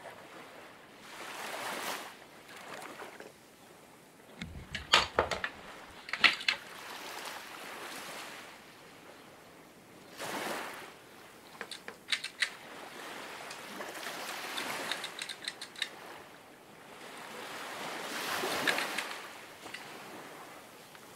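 Water washing and surging in slow swells, with scattered sharp clicks and knocks.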